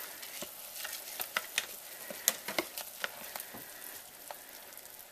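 A black plastic spoon stirring rice into chicken broth and vegetables in a slow cooker crock: a soft wet swishing with light, irregular clicks and scrapes of the spoon against the pot.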